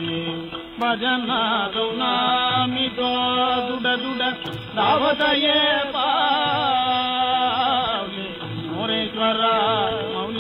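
Devotional Carnatic-style singing from a Harikatha (Katha Kalakshepam) played off an old 78 rpm shellac record, a man's voice with ornamented, wavering phrases over held accompanying notes. The sound is narrow and dull, as of an early disc transfer, with a few faint clicks.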